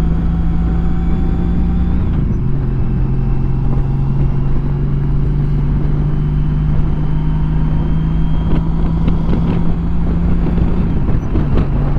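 Honda CTX touring motorcycle cruising at highway speed, heard from the rider's helmet: a steady engine hum under heavy wind rush. The engine note steps lower about two seconds in and shifts again near the end.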